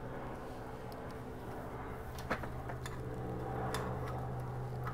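A few sharp metal clicks from pliers working spring hose clamps onto coolant hoses, over a steady low hum.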